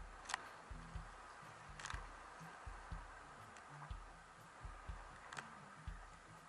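Sea kayak under way through chop: faint, muffled thumps in close pairs about once a second, in time with the Greenland paddle strokes and the hull meeting the waves, with a few sharp clicks and a faint hiss.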